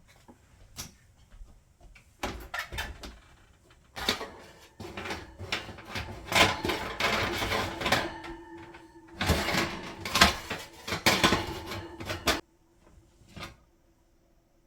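Kitchen clatter as a heavy lidded pot is put into the oven: a run of metal knocks, scrapes and clunks from the oven door, rack and pot, with a faint steady hum underneath from about six seconds in. It stops suddenly a little after twelve seconds.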